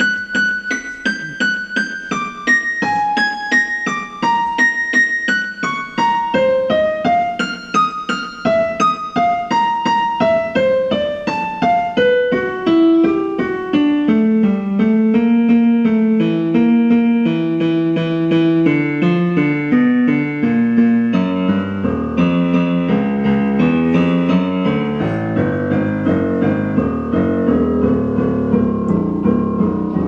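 General MIDI piano playing a data sonification: a steady stream of single quarter-notes, about three a second, each note's pitch set by one day's noon UV-B reading. The tune jumps about but sinks from the high treble into the low bass as the year's UV-B falls off, and reaches the lowest key, A0, at the end, where the low notes blur together.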